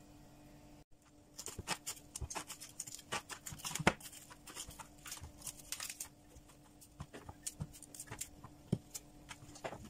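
Raw cauliflower florets being snapped off the stalk by hand: a run of crisp cracks and crackles, loudest about four seconds in, then scattered single snaps.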